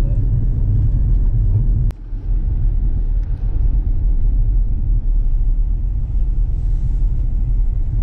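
Steady low rumble of a car driving on a dirt road, heard from inside the cabin. A single sharp click about two seconds in, after which the rumble briefly drops.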